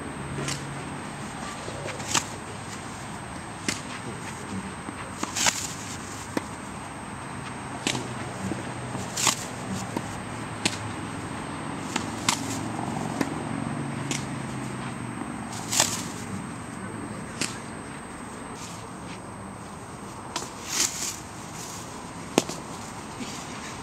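Tennis balls struck by rackets and bouncing on a hard court during a rally: sharp single pops every second or two, some louder and nearer than others.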